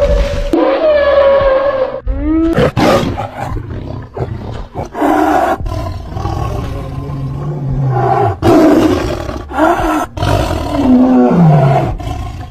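A run of separate animal roars and calls spliced one after another with abrupt cuts between them, the last one falling in pitch; they are presented as the voices of extinct animals.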